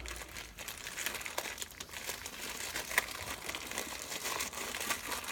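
Packaging of a fibreglass repair kit crinkling and crackling as it is handled, with irregular small clicks.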